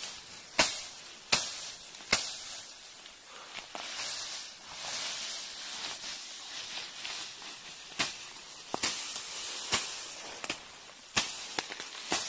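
Machete slashing through tall, dense grass and brush: sharp chopping strikes, three in the first couple of seconds, a stretch of rustling stems in the middle, then a quicker run of strikes near the end.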